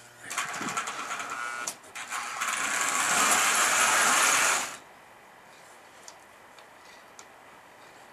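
Lionel toy train running on its track, a whirring mechanical rattle with clicks that grows louder for a few seconds. It cuts off suddenly a little before halfway, leaving only a faint hum.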